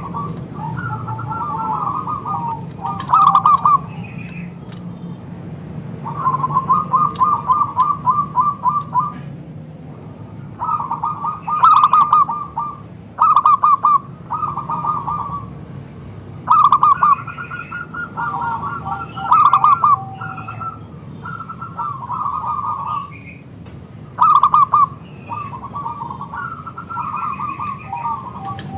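Zebra dove (perkutut) cooing: phrase after phrase of rapid staccato coo notes, each phrase one to three seconds long with short pauses between.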